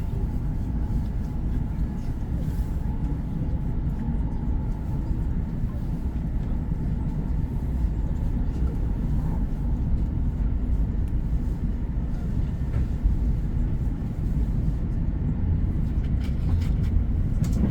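Steady low rumble of a moving train.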